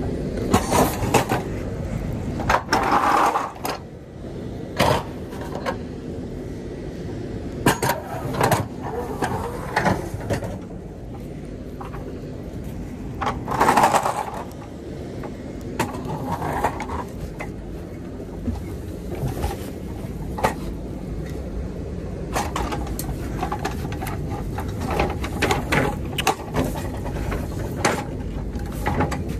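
Aluminium trailer side boards being handled by hand, with repeated irregular metallic knocks, clanks and scrapes. A steady low hum runs underneath.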